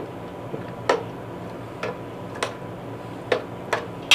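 A metal spoon stirring chicken pieces in marinade in a metal pot, clinking against the pot about every half second to a second, with a louder, ringing clank near the end.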